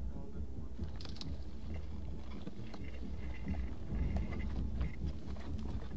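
Footsteps and boot scuffs on loose rock and gravel, with small clicks of stones, over a low wind rumble on the microphone.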